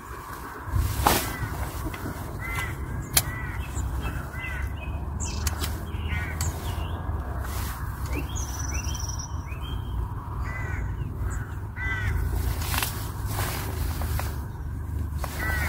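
Birds calling in short, repeated calls that come in small groups, over a steady low rumble, with a few sharp ticks.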